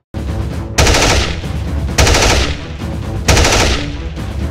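Three short bursts of automatic machine-gun fire, about a second and a quarter apart: a video-game gunfire sound effect, over a steady low rumble.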